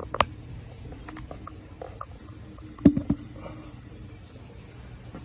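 Metal parts knocking as a boiler's low-water cutoff is taken apart: one sharp knock just after the start and three quick knocks about three seconds in, with lighter ticks between. A steady low hum runs underneath.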